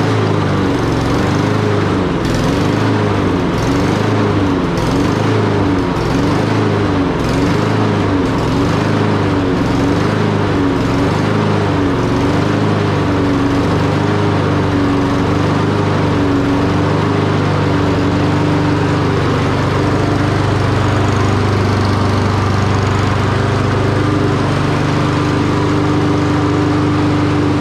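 Honda Select Drive gas lawn mower's four-stroke engine running just after being pull-started. Its speed wavers up and down at first, then settles to a steady run about two-thirds of the way through.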